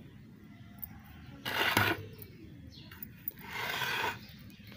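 Moss rose (portulaca) plants being pulled and torn by hand in a pot: two bursts of rustling and tearing of the fleshy stems and leaves, about two seconds apart.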